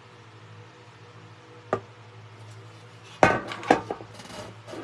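Small hard objects being handled and set down on a tabletop: a single sharp knock about two seconds in, then a quick cluster of knocks and clatters followed by a brief rustle, over a low steady hum.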